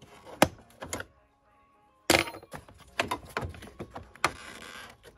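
Plastic engine-bay trim clicking and knocking as it is handled and worked loose by hand, with a short pause and then one sharp crack about two seconds in, followed by more clicks.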